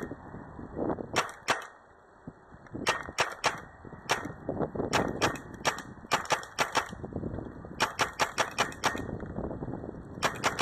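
CO2-powered paintball marker firing about twenty sharp shots in quick strings of two to six, with short pauses between the strings.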